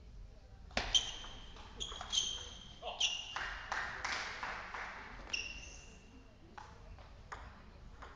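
Celluloid table tennis ball hit back and forth in a rally: a quick run of sharp, ringing pings as it strikes bat and table, then a few scattered clicks once play stops.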